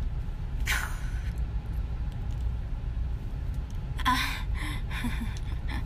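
Steady low rumble of a car's cabin on the move, with a breathy exhale about a second in and a woman's short vocal outburst about four seconds in.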